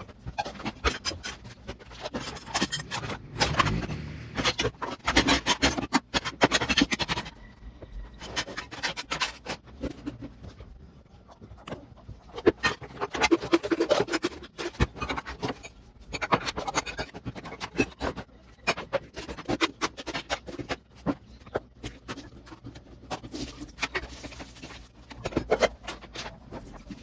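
Kitchen cleaning: irregular scrubbing and scraping strokes with scattered knocks and clatter, quieter for a few seconds about eight seconds in.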